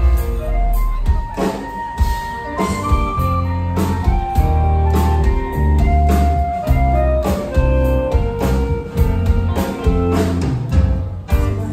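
Live band playing the instrumental part of a Mandopop song, before the vocals come in: electric guitars, bass and drum kit, with a melody line of held notes on top and a steady drum beat.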